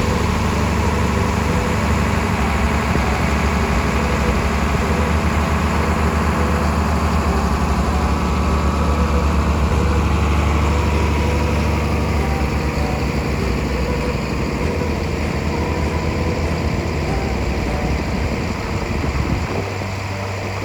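Heavy diesel engine of harvest machinery running steadily, its low note changing near the end.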